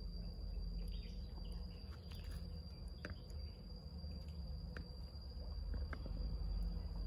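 Insects, probably crickets, giving one steady high-pitched drone that runs unbroken, over a low rumble, with a few faint ticks.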